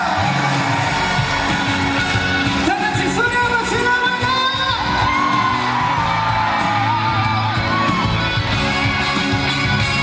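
Live trot song intro played loud over a sound system: a wavering lead melody over a steady beat and bass, with yells.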